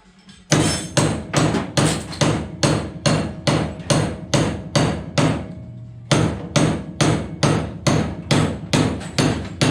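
Rapid, repeated hammer blows on metal, about three a second, with a short pause about five seconds in. The blows are bashing a seized steering box to drive it free.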